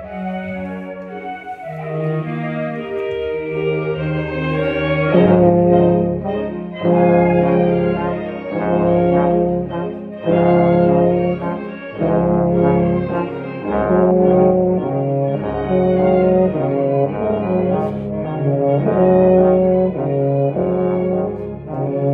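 Wind band playing, with a euphonium close to the microphone. Softer held notes at first; about five seconds in, the full band comes in with loud, accented brass chords repeated in a steady rhythm.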